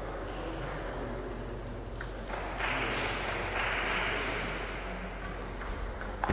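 Hall background noise between points, with a few light taps of a table tennis ball, one about two seconds in and another near the end. A noisy hiss swells for about three seconds in the middle.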